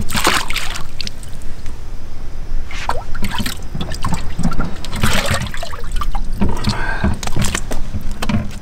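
Water splashing and dripping as a largemouth bass is dipped at the boat's side and handled in a water-filled livewell, in separate splashes with low knocks and thumps on the boat between them.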